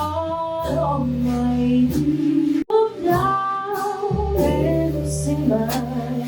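Slow jazz ballad played live by a small band: a held, slowly moving melody line over piano, guitar chords, upright bass and soft drums.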